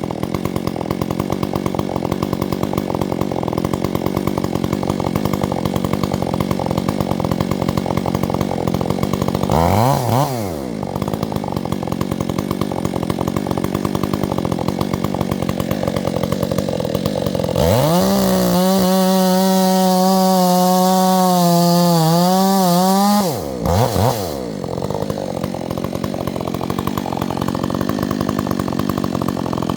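Chainsaw idling with a fast steady putter, blipped up briefly about ten seconds in, then run at high speed for about five seconds, its pitch wavering a little, before dropping back to idle.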